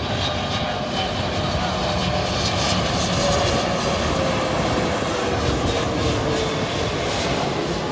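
Jet airliner's engines passing close: a loud, steady rush with a faint whine that slides slowly down in pitch.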